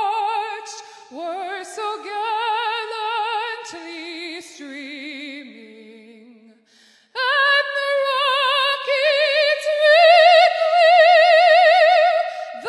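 A woman singing solo and unaccompanied, with a wide vibrato on the held notes. A phrase steps down in pitch and fades out about six seconds in; after a brief breath she comes back loud on a high held note.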